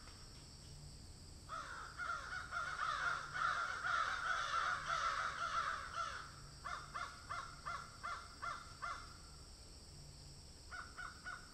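Birds calling outdoors in a dense run of overlapping calls for several seconds. A string of short calls follows, about four a second, with a few more near the end.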